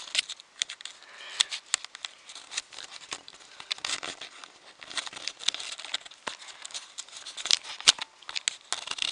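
Dense, irregular crackling and rustling clicks from a handheld camera being handled close to its microphone.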